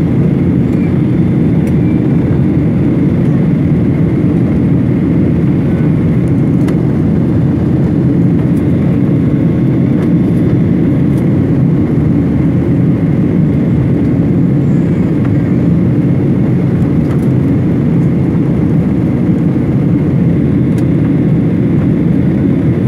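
Steady low rush of a jet airliner's engines and airflow, heard from inside the cabin in flight, with a faint high whine over it.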